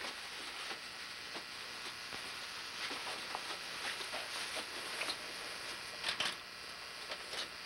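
Steady hiss under faint scattered rustles and light knocks from people moving about a small room, with a pair of louder knocks about six seconds in.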